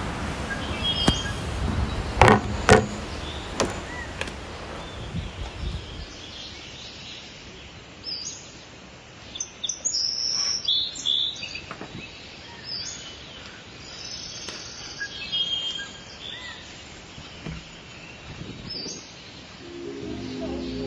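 Birds chirping, short high calls coming here and there over a steady background hiss. A few knocks and clicks in the first seconds; music comes in near the end.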